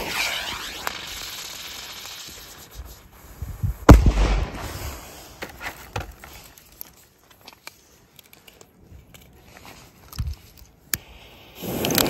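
Cuby Blizzard firework cubes: a spark fountain hissing and dying away, then one loud bang about four seconds in as the cube's report goes off, followed by a few scattered cracks. Near the end the next cube is lit and its spark fountain starts hissing.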